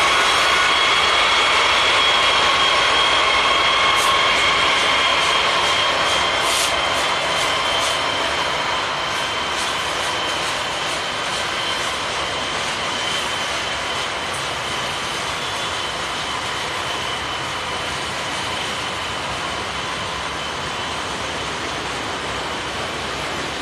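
Norfolk Southern freight train passing: the locomotives' diesel engine sound fades as they move off, and freight cars roll by on steel wheels over the rails. There are steady high tones that die away by about halfway through, and a few sharp clicks in the first several seconds.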